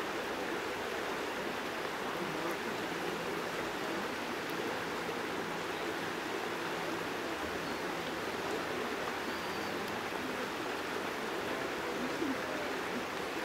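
River current flowing steadily over a shallow, rippled stretch of water: a continuous even rushing.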